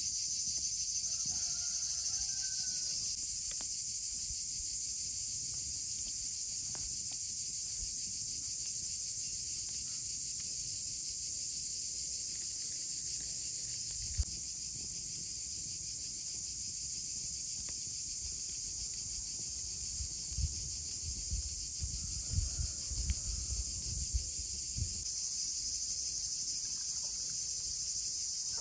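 A steady, high-pitched insect chorus runs throughout, with a faint bird chirp near the start. About two-thirds of the way through there is a short run of soft low thumps.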